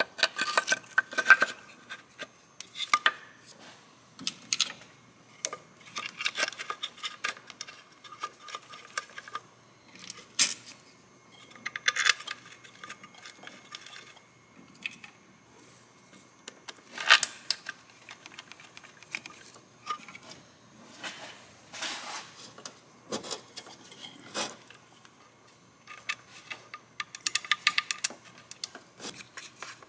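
Hand work on car engine-bay parts: scattered clicks, clinks and light rattles of a metal tool and plastic electrical connectors being handled and pushed into place around the ECU. The sounds come in short clusters, with a quick run of clicks near the end.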